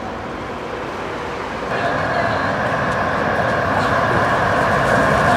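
Street noise, then from about two seconds in the running noise of an approaching DÜWAG articulated tram on street track, a steady rumble and hum that grows louder.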